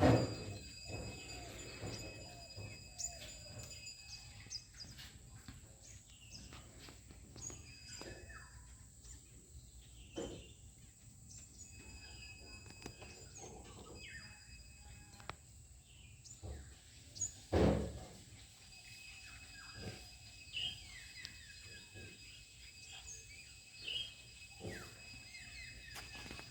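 Birds chirping in short scattered calls over a steady high-pitched whine, with a few soft thumps, the loudest about 18 seconds in.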